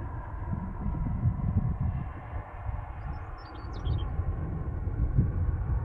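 Wind buffeting the camera microphone: a low, uneven rumble that eases briefly in the middle. A bird chirps a few times about three to four seconds in.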